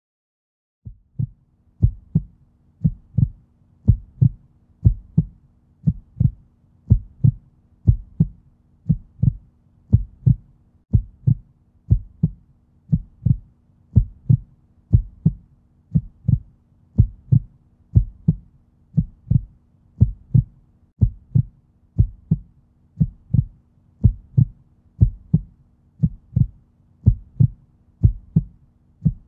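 Heartbeat sound effect: steady low double thumps, about one beat a second, starting about a second in.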